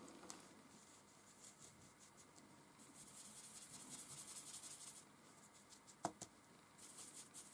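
Faint, quick scratchy strokes of a paintbrush working charcoal powder into drawing paper. They come in two spells, one about three seconds in and one near the end, with a single small tap between them.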